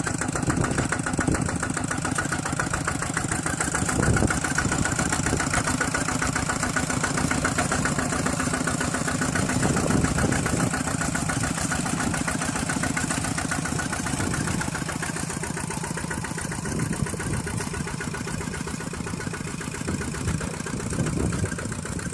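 An engine running steadily at an even speed, with a rapid, even beat, easing slightly quieter near the end.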